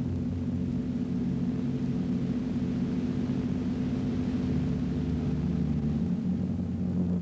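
Low electronic drone of a silent-film musical score: several held low tones that shift about six seconds in.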